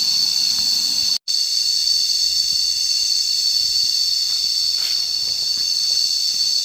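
Chorus of cicadas giving a loud, steady high-pitched drone. It cuts out completely for an instant about a second in.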